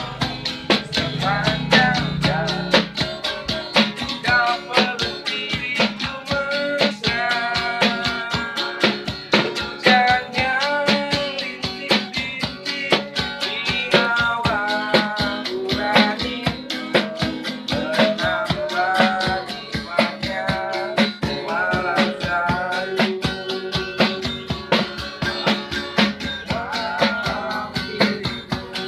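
Street busking: a man singing over a strummed acoustic guitar, with a small portable drum tapping a steady beat.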